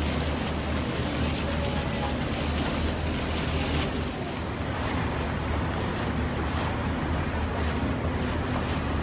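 Sightseeing cruise boat under way on the river: a steady low engine rumble with water rushing past the hull and wind buffeting the microphone.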